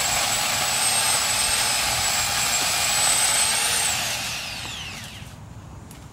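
Corded electric pole chainsaw running at full speed with a steady high whine for about four seconds. Then the trigger is let go and the motor spins down, its pitch falling over about a second and a half.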